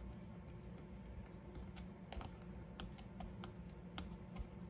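Faint, scattered light clicks and ticks of fingers handling small foam adhesive dimensionals and paper on a craft mat.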